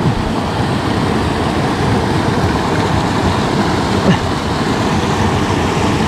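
Steady rushing of a mountain headwater stream, with a brief faint knock about four seconds in.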